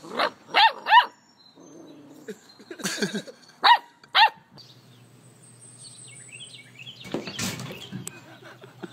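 A puppy barking in short, high-pitched yaps: three quick ones in the first second, then two more a few seconds later.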